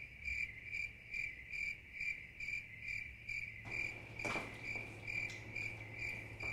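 Cricket chirping sound effect: an even run of high chirps, about two and a half a second, over a faint low hum.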